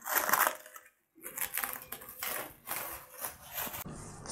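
Plastic cling film crinkling and crackling as it is handled and peeled off a glass bowl, in two bouts with a short silent break about a second in.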